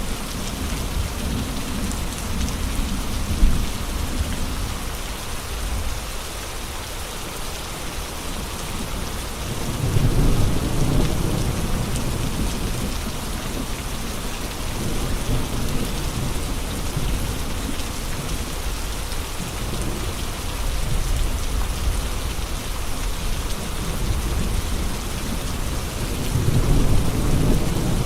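Steady rain with wind. A low rumble swells up twice, about ten seconds in and again near the end.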